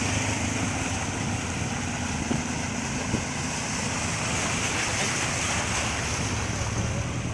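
Steady rush of rain and water on a flooded street, with the low hum of vehicles driving slowly through the standing water.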